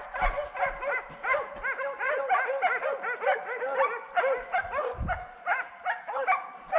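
Pack of hunting dogs giving tongue, several voices overlapping in fast, high, arching yelps, several a second: hounds baying on a wild boar's trail.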